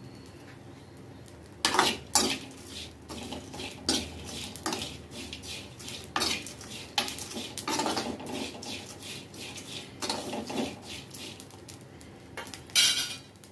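Spatula scraping and knocking against a kadhai in irregular strokes, stirring dried shrimp as they roast. The strokes start about two seconds in, and the loudest scrape comes near the end.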